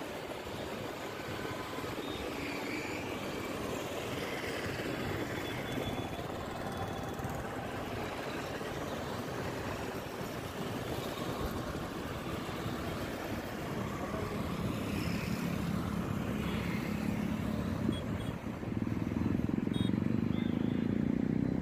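Road traffic noise from a busy city road heard from a moving vehicle, with wind rushing over the microphone and motorcycles and cars running alongside. The noise grows louder in the last few seconds.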